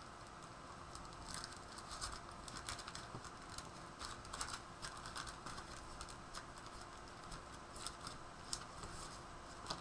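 Faint, irregular rustles and light clicks of card stock and a honeycomb paper insert being handled and pressed by hand.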